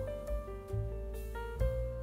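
Background music: held melody notes changing every half second or so over a low bass line.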